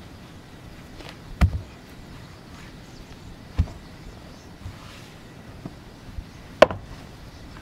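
Stones being set down one at a time to build a small stone cooking stove: two dull thuds, then a sharp stone-on-stone clack about two-thirds of the way in.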